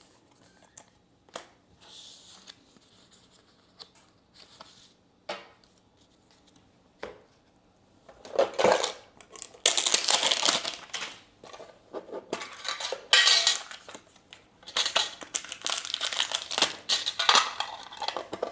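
A metal card tin being handled and opened: scattered light clicks at first, then from about eight seconds in loud clattering and rustling as the tin and its contents are handled.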